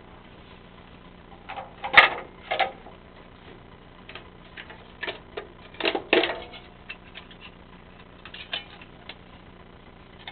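Hard clicks and knocks of a cap being worked and pulled open by hand, coming in clusters about two seconds in and again around six seconds, with lighter clicks near the end.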